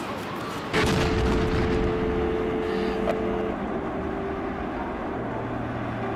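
A sudden loud explosion about a second in, from an airliner crashing into a skyscraper, followed by a long low rumble.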